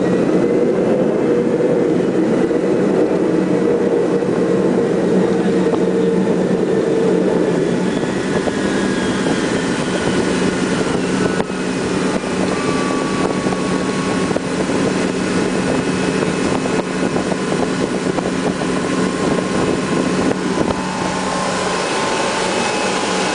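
Ilyushin Il-76's four Soloviev D-30KP turbofan engines running steadily at high power during the take-off run, heard from inside the aircraft as a loud, even engine noise with a low steady hum.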